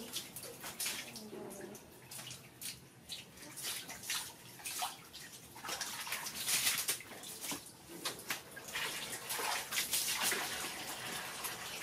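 Water from a garden hose pouring into a plastic bucket, with repeated splashing as a small monkey thrashes in the water and climbs out.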